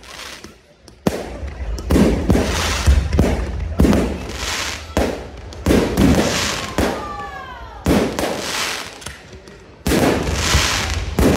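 Aerial fireworks shells bursting in a rapid series of sharp bangs, about one every one to two seconds, each trailing off in a hiss. A short whistle falls in pitch about seven seconds in.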